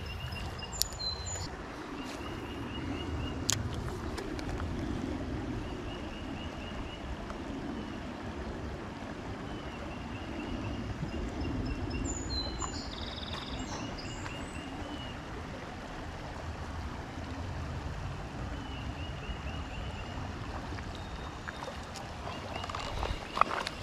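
Creekside outdoor ambience: a steady low rush, with a bird's short, quick trill repeating every few seconds and a few brief higher chirps.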